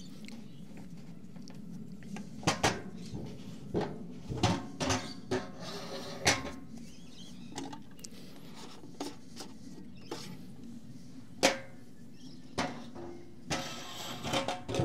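Scattered light clunks and clicks at irregular intervals, the loudest about eleven seconds in, of a hand oil pump and its hose being handled while fresh engine oil is pumped into the tractor after an oil change.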